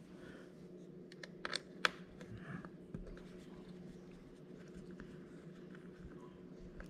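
Small precision screwdriver turning a tiny screw in the laptop's M.2 storage slot: faint scattered ticks and scrapes of metal on metal, with two sharper clicks about a second and a half and two seconds in. A low steady hum sits underneath.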